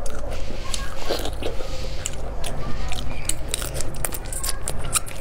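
Close-up eating sounds: whole marinated shrimp being bitten and chewed, the shells cracking in a quick, irregular run of crunches and clicks.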